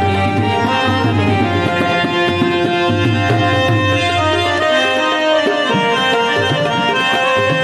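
Harmonium and tabla playing an instrumental passage of a Gujarati song: steady held reed chords and melody over the tabla's rhythmic strokes.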